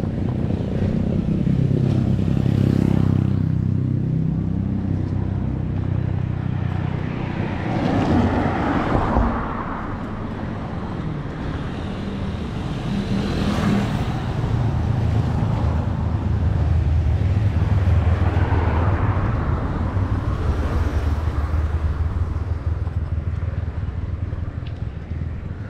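Wind and road rumble on an action camera riding with a bicycle climbing a paved street, with a low steady hum that comes and goes. The rushing swells several times along the way.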